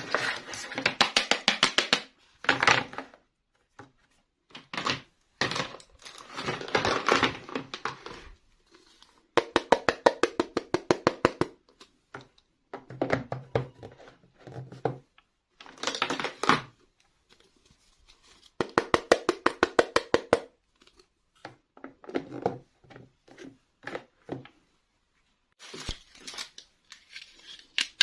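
Bursts of rapid clicking and crinkling with short pauses between them: plastic toy packaging being handled and opened.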